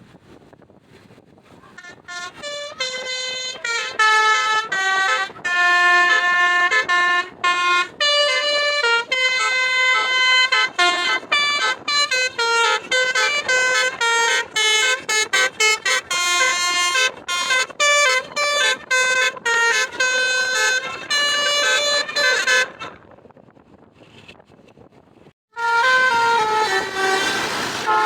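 Bus basuri telolet horn playing a fast melody of short stepped notes, each a different pitch, for about twenty seconds. It stops briefly, then sounds again near the end.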